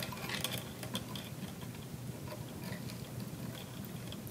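Statue chain links clicking and ticking softly as the chain is worked and pulled through the figure's hand, which is already crowded with chain.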